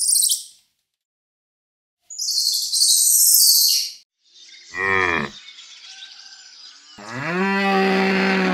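A burst of high, hissy chattering, then two deep bellowing calls from red deer stags: a short one falling in pitch, and about two seconds later a longer, steadier one.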